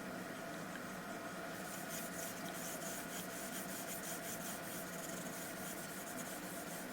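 Quick back-and-forth drawing strokes scratching on a large sheet of paper, many short strokes, denser from about a second and a half in, over a faint steady hum.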